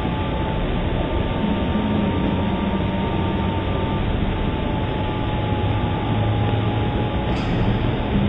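Steady hiss and low rumble of outdoor background noise picked up by a doorbell camera's microphone, with a faint hum and no distinct event.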